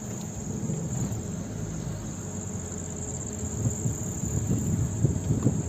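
Steady high-pitched chorus of insects trilling in the fields, with a low, uneven rumble beneath it.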